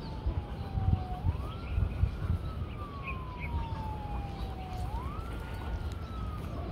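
A siren wailing. Its pitch rises quickly and then falls slowly for about three seconds, and the cycle repeats, rising twice. Underneath is an uneven low rumble.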